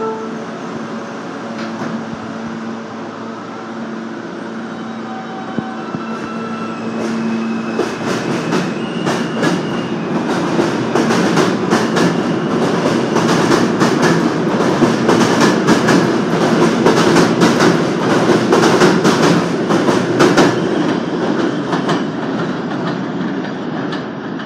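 R160 subway train pulling out of an elevated station. It starts with a steady hum and a rising electric propulsion whine. From about eight seconds in, the wheels clatter over the rail joints, growing louder as the cars pass and fading near the end as the train leaves.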